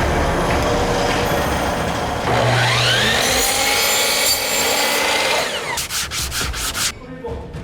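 Power tools working wood: a steady sanding noise, with a motor whine that rises about two and a half seconds in, then a quick run of short rasping strokes near the end.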